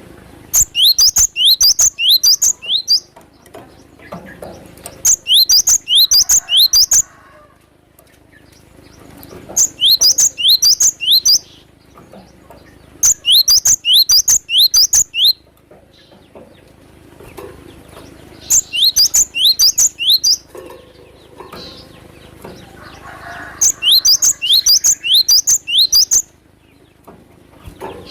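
Cinereous tit (glatik batu) calling in six rapid bursts of sharp, high notes, about four or five notes a second, each burst lasting about two seconds with short pauses between, over faint rustling and clicks.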